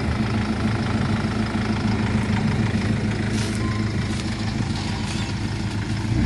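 Off-road SUV engine running steadily at low revs, close by, as the vehicle crawls slowly over a dirt trail.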